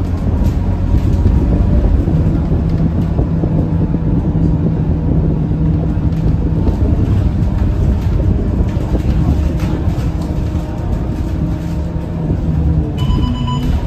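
Scania K230UB single-decker city bus's five-cylinder diesel engine running as the bus drives along, heard from inside the passenger cabin: a steady low drone with road and tyre noise. About a second before the end a short electronic beep sounds.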